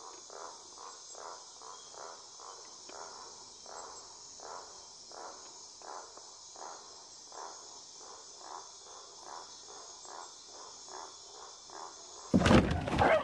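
Night-time rainforest insect chorus: a steady high buzz, with a lower pulsed call repeating about three times a second. Near the end, a sudden loud burst of noise cuts in.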